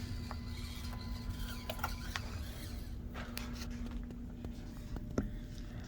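Axial SCX24 micro RC crawler working over the course: a soft steady motor and gear hum that stops about four and a half seconds in, with scattered light clicks of the tyres and chassis on the terrain and a sharper tick near the end.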